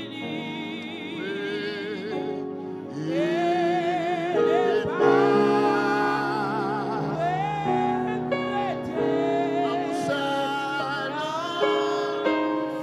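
A song: a solo voice singing long, held notes with a wide vibrato over sustained accompanying chords.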